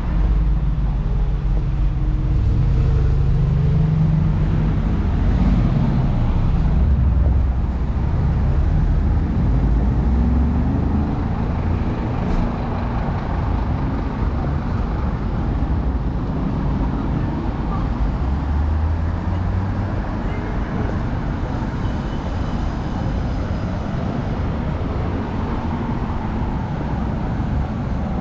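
Motor traffic on a city street: car engines and tyres driving past close by, with a heavy low engine rumble in the first eight seconds or so that then settles into steady road noise.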